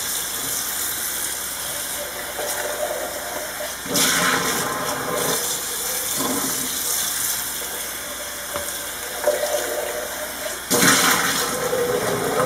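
Tap water running into the stainless steel lower water chamber of an electric moka pot and splashing out into a stainless steel sink as the chamber is rinsed. Louder gushes come about four seconds in and again near the end.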